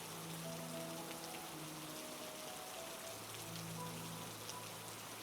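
Steady rain with scattered drop ticks, under a soft background of slow, held music tones.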